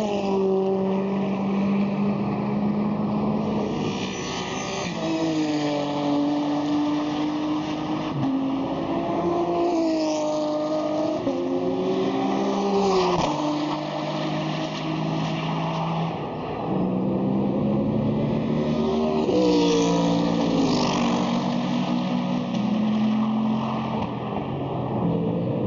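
GT3 and GT4 racing cars passing in a stream, engines revving through the gears, with a sharp drop in pitch as cars go by, about 13 s and again about 20 s in.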